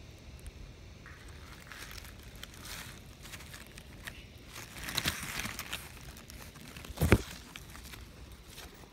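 Dry leaf litter rustling and crinkling in irregular spells, with one sharp thump about seven seconds in, the loudest sound.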